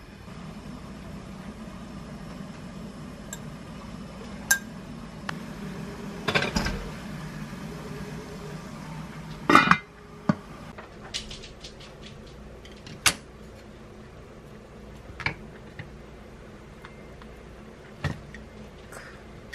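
Kitchen handling sounds: scattered clinks and taps over a low steady hum, with a loud clatter about ten seconds in as a lid goes onto a hammered aluminium pot, after which the hum stops. Single knocks and taps follow.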